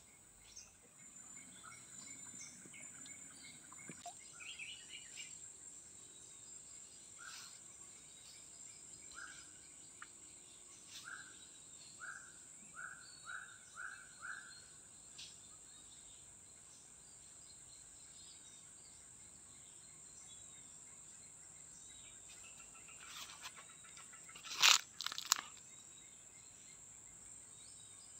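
Tropical forest ambience: a steady high-pitched insect drone, with a bird calling a run of about six short notes about half a second apart in the middle. Near the end, two sharp sudden sounds in quick succession stand out as the loudest.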